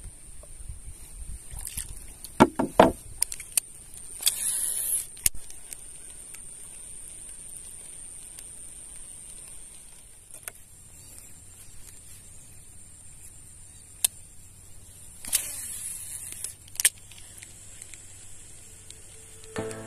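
Small wooden boat moving through marsh grass: a cluster of sharp knocks on the hull, a few single clicks, and two short swishing rustles, over a steady high-pitched insect drone.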